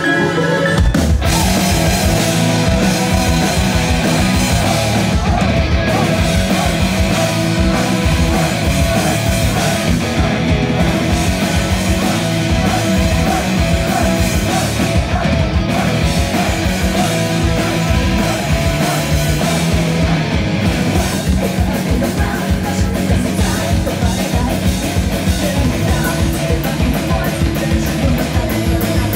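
Live hard-rock band playing at full volume, heard from on stage beside the guitar amp: distorted rhythm guitar through an EVH 5150 head and Peavey cabinet, with bass guitar and drums. The full band kicks in about a second in.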